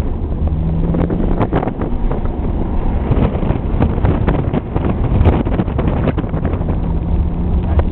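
BMW 335i's turbocharged straight-six pulling hard through an autocross course, heard from inside the cabin as a deep, loud rumble that rises and falls with the throttle. Wind buffets the microphone, and short knocks and rattles come through from the car.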